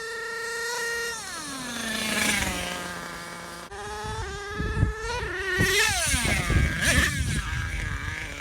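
Nitro engine of an HPI Savage 3-speed RC monster truck running at high revs, dropping to idle about a second in, then revving up and down repeatedly through the second half.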